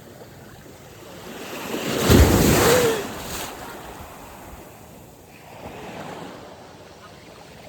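Ocean surf breaking: a wave swells and crashes about two seconds in, then washes away, with a smaller surge later. Wind is buffeting the microphone.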